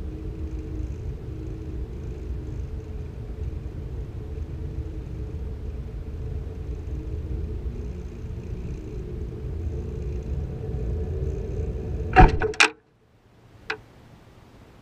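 Wind rushing and rumbling past the MAPHEUS-5 sounding-rocket payload as it drifts down under its parachute. About twelve seconds in come two or three sharp, loud impacts as the payload hits the ground. The rumble then cuts off suddenly, and a single faint click follows.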